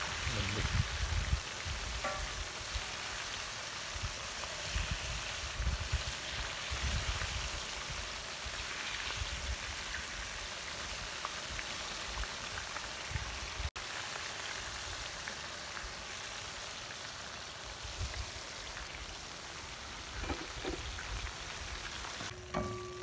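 Battered slipper lobster pieces deep-frying in a wok of hot oil: a steady sizzle. Music comes in near the end.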